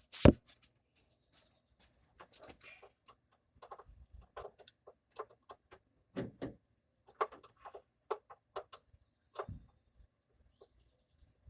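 Irregular light clicks and knocks of hand tools and metal parts being handled while working the carburetor mounting bolts loose, with a sharp click just after the start.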